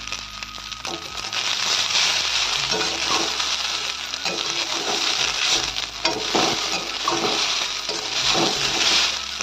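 Boiled fusilli pasta sizzling as it fries in oil in a metal kadai, with a perforated metal spatula stirring and scraping through it against the pan. It gets louder about a second in.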